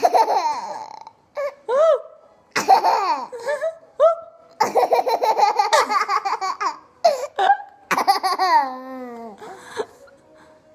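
A toddler laughing hard in repeated bursts, including a fast run of ha-ha-ha pulses about halfway through, with his mother laughing along. The laughter dies down near the end.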